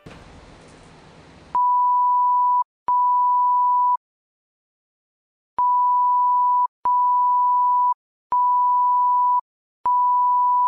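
Censor bleeps: six steady, high, single-pitched beeps about a second long each, with short gaps between them and a longer pause after the second, blanking out a boy's shouted swearing. Before them, about a second and a half of noisy hiss.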